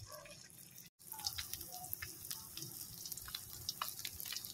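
Slices of luncheon meat frying in shallow oil in a pan: scattered pops and crackles of spitting oil, broken by a brief dropout about a second in.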